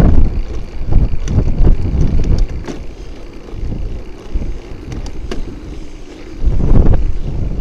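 Wind buffeting and road rumble on a bicycle-mounted camera as the bike rolls along a street, with a few sharp rattling clicks. The rumble is loud at the start, drops away, and swells again about two-thirds of the way through.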